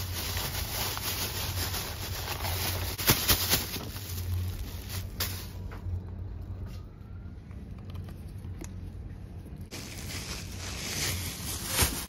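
Thin plastic produce bags rustling and crinkling as groceries are handled into a shopping basket, with a few sharp knocks, the loudest about three seconds in and another near the end.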